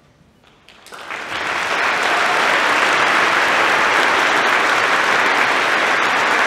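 Audience applauding: after a brief hush the clapping starts about a second in, swells within a second or so and then holds steady.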